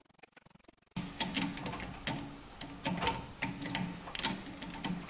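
Faint metallic clicks of steel hex soft jaws being fitted onto a three-jaw lathe chuck. About a second in the sound changes abruptly to a steady low hum with irregular sharp clicks and taps.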